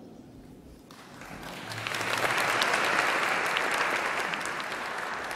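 Audience applauding: the clapping starts about a second in, builds quickly, then slowly fades.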